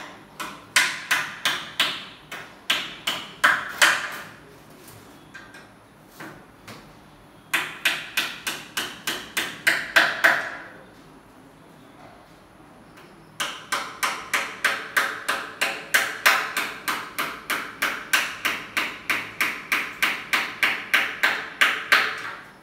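Hammer blows struck in quick runs, about three or four a second, with a short ring after each strike. The runs pause twice, with a few scattered taps between them.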